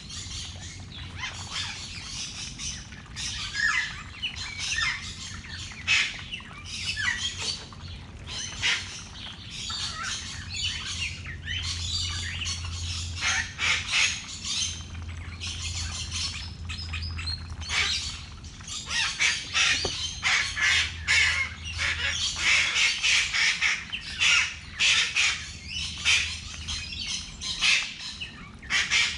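Many birds chirping and squawking in quick, overlapping short calls, busiest in the second half, over a steady low hum.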